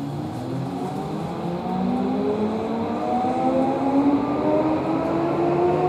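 Tokyo Metro 16000 series (4th batch) subway train's Mitsubishi IGBT-VVVF inverter and permanent-magnet synchronous traction motors whining as the train pulls away, heard inside the car. Several tones rise steadily in pitch and grow louder as it gathers speed.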